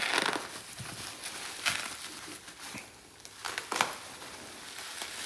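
Plastic bubble-wrap packaging crinkling and rustling in several short bursts as a diesel fuel injector is unwrapped by hand.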